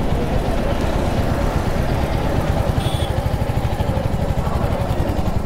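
Royal Enfield Hunter 350's single-cylinder engine running as the bike is ridden at low speed, a steady low pulsing exhaust note under a rush of noise on the microphone.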